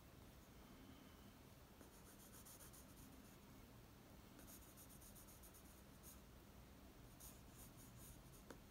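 Faint scratching of a Staedtler Mars Ergosoft graphite pencil on drawing paper: several runs of quick short strokes with pauses between them, and a small click near the end.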